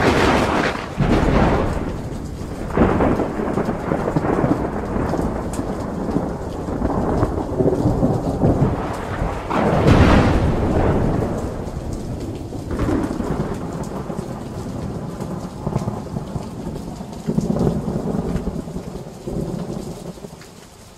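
Thunderstorm: steady rain with repeated rolls of thunder, the loudest about ten seconds in, dying down near the end.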